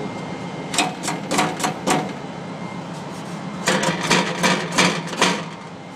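Loose exhaust heat shield on a 2010 Toyota Corolla LE clattering in two runs of sharp metallic knocks, about four and then six or seven. The owner takes the loose shield for the source of the car's rattling noise.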